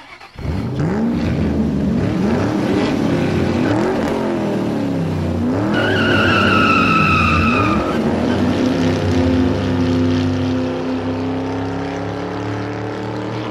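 Car engine revving up and down several times. A high-pitched tyre squeal lasts about two seconds midway, and the engine then runs at a steady, slowly rising pitch.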